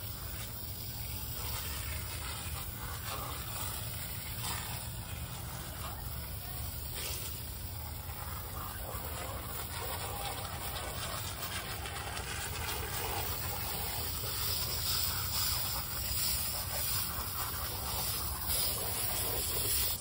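Aerosol can of foaming coil cleaner spraying onto an air-conditioner condenser coil: a steady hiss that gets somewhat stronger near the end, over a low rumble.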